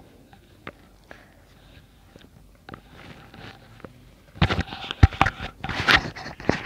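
Black lace net and a fabric strip being handled and folded at a sewing machine: faint scattered clicks, then, from about four seconds in, irregular crinkly rustling and sharp clicks.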